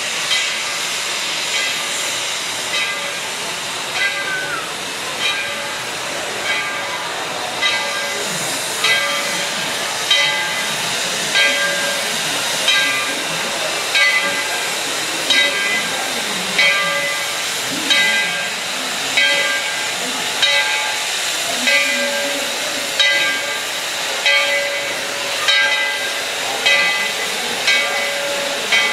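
Steam locomotive No. 12, a narrow-gauge 4-6-0, standing with steam hissing steadily. Over the hiss comes an even beat about once every second and a quarter, the locomotive's steam-driven air pump working.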